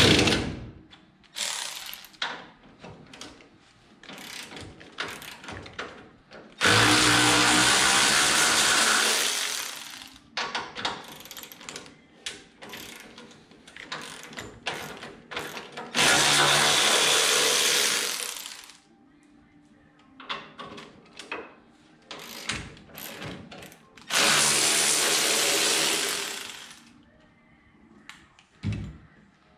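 A power tool spinning the shock absorber's mounting nut runs in three bursts of a few seconds each, with metal clicks and clinks of tools between the bursts as the shock is removed.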